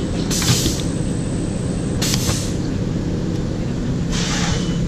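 Pneumatic air hissing from an M&R Gauntlet III automatic screen printing press: three short bursts, each about half a second and about two seconds apart, over a steady machine hum.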